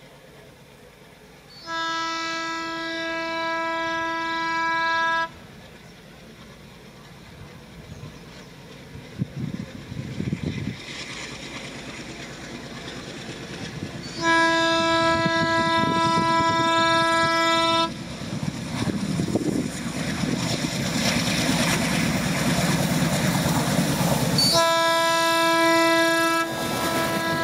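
WDG-3A ALCO diesel locomotive sounding its horn in three long blasts of about three to four seconds each, the last still sounding at the end. Between the blasts the engine and wheels running over the track grow steadily louder as the train approaches.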